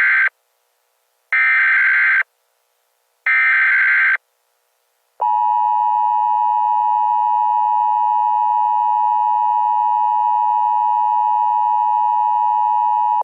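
Emergency Alert System tones: three short bursts of the SAME header's digital data screech, the first already under way, then after about a second's gap the steady two-tone attention signal, held for about eight seconds.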